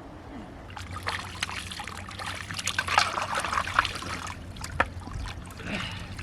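Water trickling and splashing, with a patter of small clicks, from about a second in until past four seconds.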